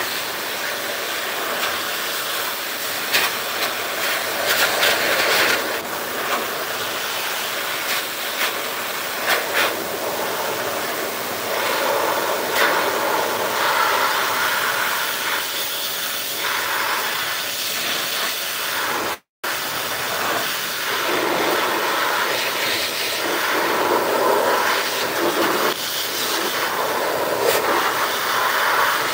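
Pet grooming blower dryer blowing air through its hose and nozzle onto a long-haired cat's fur: a steady loud hiss whose tone shifts now and then. It cuts out for a split second about two-thirds through.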